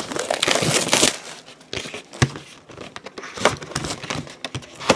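Plastic wrapping crinkling and rustling as a trading-card box is handled by hand, loudest in the first second, followed by scattered light taps and a low knock about two seconds in.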